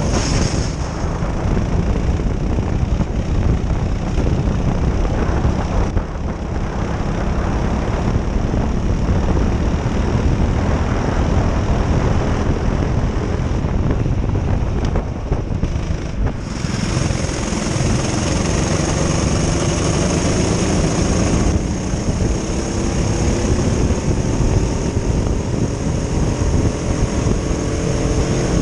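Twin Honda engines of a Prokart racing kart running hard at racing speed, heard close up from the kart itself. Near the end the engine note climbs steadily as the kart accelerates.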